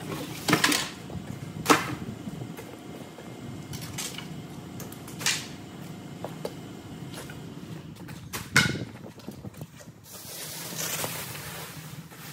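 A few sharp knocks and bumps of things being handled and set down, then a longer crinkling rustle of plastic sheeting being gathered up near the end.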